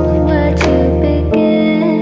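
Background music: sustained instrumental tones with a few plucked notes, the bass shifting to a new chord about a second in.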